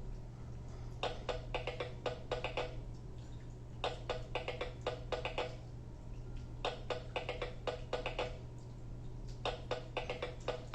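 Fisher-Price Code 'N Learn Kinderbot toy robot playing a short percussive rhythm clip through its small speaker, played through its stored sounds in sound test mode. It comes in four bursts of quick, clicky pitched beats, about one every three seconds.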